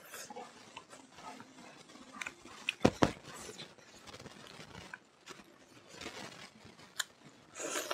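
Close-up eating sounds: bare fingers squishing and mixing rice with smoked pork and fermented soybean on a wooden plate, with soft chewing and mouth smacks. Two sharp clicks about three seconds in are the loudest, with a smaller click near the end.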